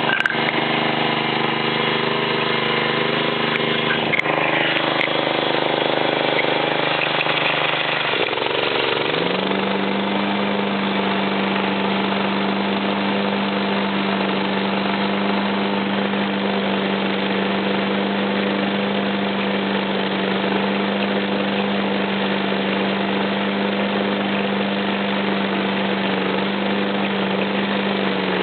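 John Deere JX85 walk-behind mower's small single-cylinder engine running just after a cold start, having sat unused for about a month. It runs unevenly at first, then picks up speed about eight or nine seconds in and settles into a steady, higher idle as it warms and clears out.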